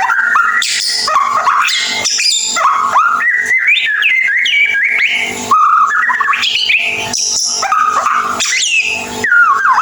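White-rumped shama singing its rapid chattering 'ngeriwik' song: a dense run of quick whistled notes and slurs sliding up and down, with hardly a pause.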